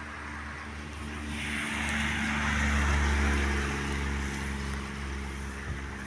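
A vehicle passes on a rain-wet road, its tyre hiss and engine swelling to a peak about three seconds in and fading away, over a steady low rumble.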